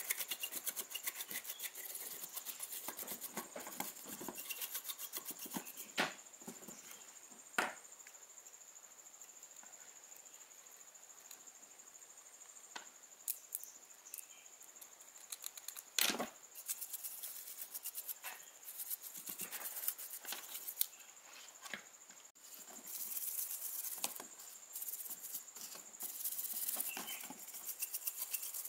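Rapid rubbing strokes, several a second, coming in runs, with a few sharp clicks in between.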